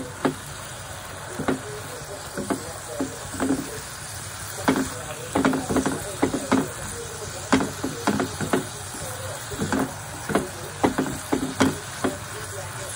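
A spatula stirring and scraping drumstick pieces and grated coconut around a nonstick frying pan, in irregular clusters of short knocks, over a steady sizzle of the frying.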